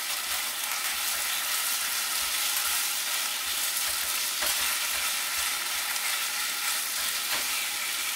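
Chicken pieces sizzling steadily in hot oil in a nonstick wok while being stirred with a spatula, with a couple of light scrapes of the spatula against the pan.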